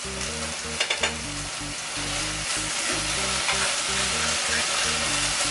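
Red curry sauce and vegetables sizzling hard in a hot pot with sautéed chicken pieces while being stirred, with a few quick utensil clatters about a second in.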